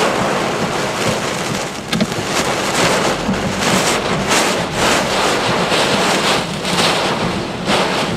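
Hurricane wind and rain, gusting in repeated surges, with the wind buffeting the microphone.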